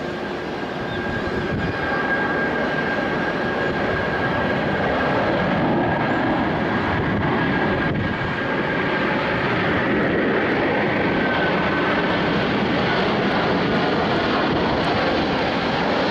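Rolls-Royce Trent 700 turbofans of an Airbus A330-243F freighter at takeoff power during the takeoff roll and rotation: a loud, steady jet roar with a thin high whine, growing louder about two seconds in.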